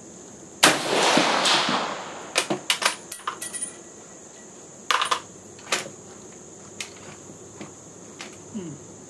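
A single shot from a Swedish M38 Mauser in 6.5×55mm, its report ringing out briefly under the range roof. It is followed by the bolt being cycled by hand: a quick run of metallic clicks with the clink of the ejected brass case, then a few more clicks as the bolt closes on an action that the shooter finds sticks.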